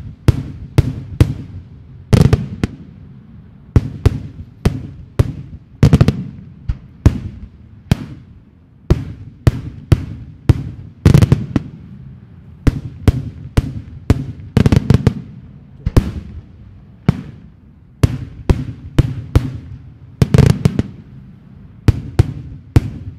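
Daytime aerial fireworks: a rapid, irregular series of shell bursts and loud bangs, about two a second, each echoing briefly.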